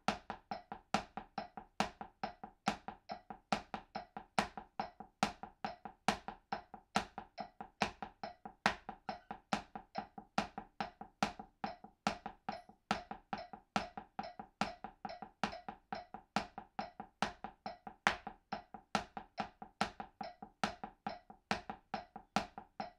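Drumsticks playing a single stroke roll, hands alternating in quick, even strokes on a makeshift practice pad of books covered with a washcloth. A metronome keeps a steady beat at 140 bpm.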